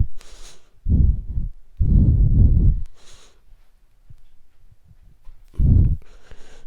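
A stool being moved, heard as three muffled low rumbles of about a second or less each, with two brief soft hisses between them.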